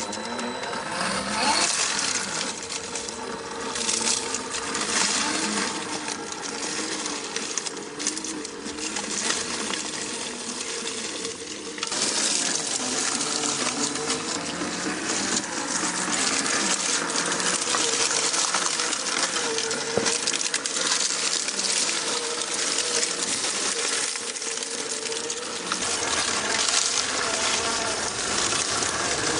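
Traxxas TRX-4 RC crawler's electric motor and geared drivetrain whining, its pitch rising and falling as the truck is throttled over the terrain, with small clicks and rattles from the chassis and tyres over a steady hiss.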